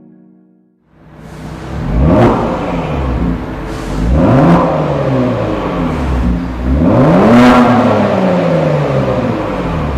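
Kia Stinger GT 3.3T's twin-turbo V6 revved three times through a RES stainless steel mid pipe and valved catback exhaust, each rev rising and falling in pitch, the third the longest. The engine comes in about a second in.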